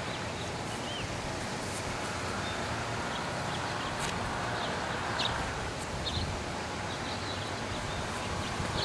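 Outdoor ambience: a steady rustle of wind and leaves with scattered short bird chirps.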